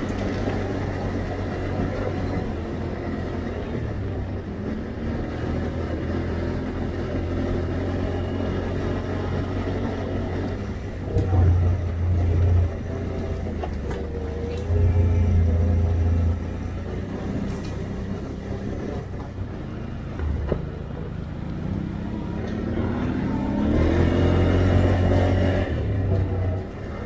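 Can-Am Outlander 850 ATV's V-twin engine running under way, opened up in louder surges a few times and revving up near the end, with a few sharp knocks.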